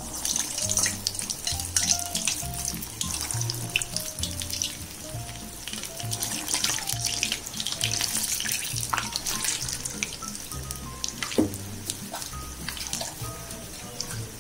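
Urad dal bonda batter balls deep-frying in hot oil in a kadai: a dense sizzle and crackle of bubbling oil that starts sharply as the first ball goes in and keeps up with many small pops. One sharper crack comes a little past eleven seconds.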